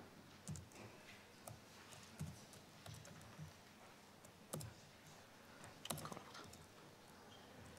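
Faint, scattered clicks from a laptop's keys or mouse as cube colours are entered into a spreadsheet, with two sharper clicks about four and a half and six seconds in.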